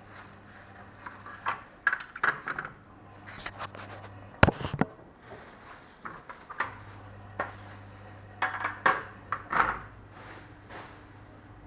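Plastic wrapping crinkling as it is pulled and handled, with irregular clicks and knocks of a metal tray against a stone countertop; the sharpest knock comes about four and a half seconds in. A faint low hum runs underneath.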